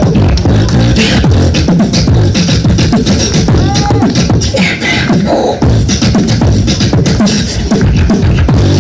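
Solo beatboxing into a handheld microphone, amplified through stage speakers: a dense, rapid rhythm of bass kicks and sharp clicks with hissy hi-hat-like sounds, and a few short pitched vocal glides about four seconds in.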